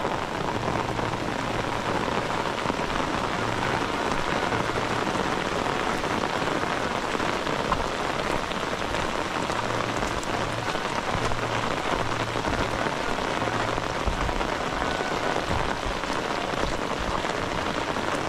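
Heavy rain falling steadily, a dense, even downpour.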